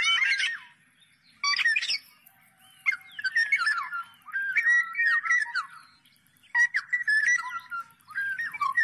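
Black-naped oriole singing: fluty whistled phrases with quick pitch glides, in bursts of about a second separated by short pauses.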